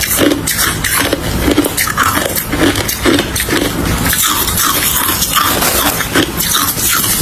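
Hard crushed ice being bitten and chewed close to the microphone: a continuous run of crunching and crackling with repeated chews.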